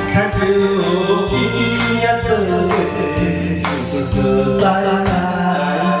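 Karaoke: a man singing into a microphone over a song's backing track.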